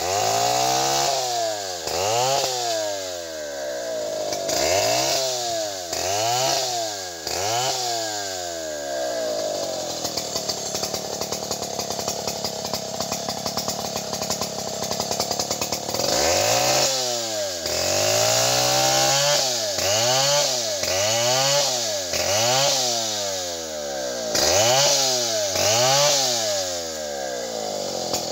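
Stihl two-stroke chainsaw cutting into a large tree trunk, its engine pitch surging up and down about once a second as the throttle is worked. For several seconds in the middle it runs at a steady, even pitch, then the rhythmic surging resumes.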